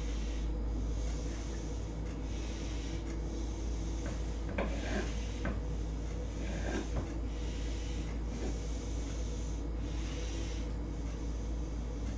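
Kitchen knife slicing through cooked chicken breast on a cutting board, rubbing and scraping, with a few sharper knocks of the blade on the board about four to seven seconds in, over a steady hum.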